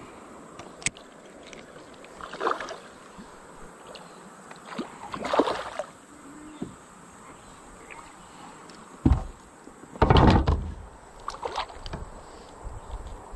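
Scattered water splashes and sloshing beside a plastic kayak as a smallmouth bass is landed by hand. A sharp knock on the hull comes about two-thirds of the way through, and the loudest splash follows just after it.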